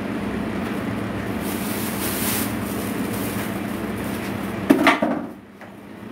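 Steady machine hum with a constant low tone, then a couple of sharp knocks and a rustle nearly five seconds in, after which the hum falls away much quieter.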